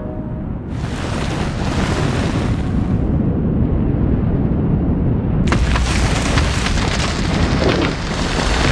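Avalanche of snow and debris sliding down a rocky mountain gully: a deep, steady rumble with a rushing hiss over it. The hiss fades after a couple of seconds, then comes back stronger with a rapid crackle about five and a half seconds in, as the powder cloud arrives.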